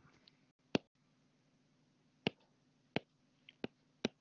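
An iPad stylus tip tapping on the tablet's glass screen while writing by hand: about five sharp, irregularly spaced clicks over a faint low hum.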